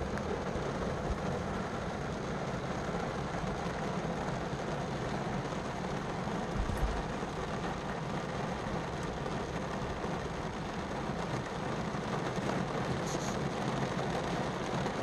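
Heavy rain falling on a car's roof and windshield, heard from inside the cabin as a steady, even hiss, with one brief low thump about seven seconds in.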